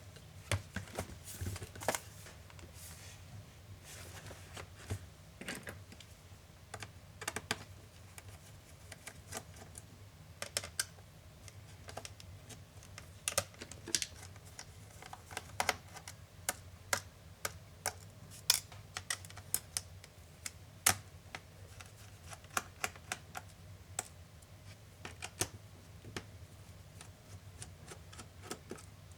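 Irregular clicks and light taps of hands and small tools working on the case of an Acer Swift SF315 laptop during disassembly, over a faint low hum.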